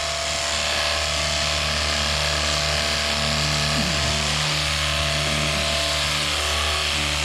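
Jet Hawk cordless pressure washer running steadily: a steady low motor-and-pump hum under the hiss of the water jet.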